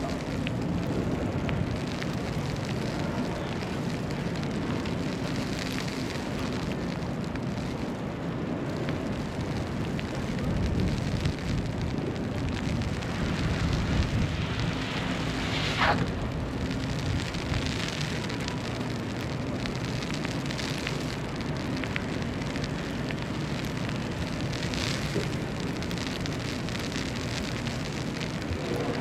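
City street ambience in a snowstorm: a steady low rumble of wind and distant traffic under a crackling hiss. About halfway through, a short squeal slides quickly down in pitch.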